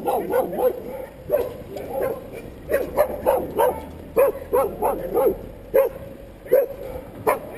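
Dogs barking in short, sharp barks at an irregular pace as they chase alongside a passing bicycle.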